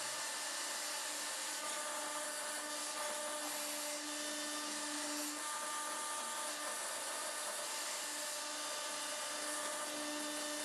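Hydraulic power unit (electric motor and pump) of a homemade 40-ton forging press running with a steady whine. Its tones fade in and out as the ram is eased down.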